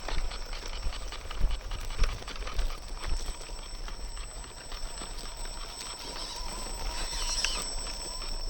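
3D-printed RC rock crawler running: a steady high electric-motor whine under irregular light clicks and knocks from the truck's plastic parts.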